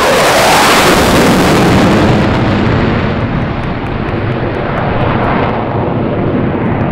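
F-15C Eagle's twin Pratt & Whitney F100 turbofans running in afterburner: a loud, continuous jet roar as the fighter passes and climbs away. The roar is loudest in the first two seconds, then eases slightly.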